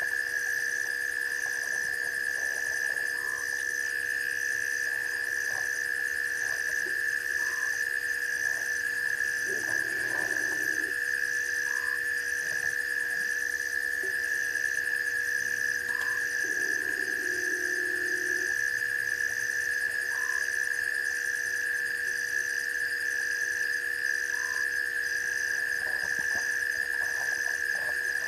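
Night chorus of insects and frogs: a steady high-pitched drone with a fast pulsing trill above it, and a short call repeating about every four seconds. Two lower croaking calls come near the middle.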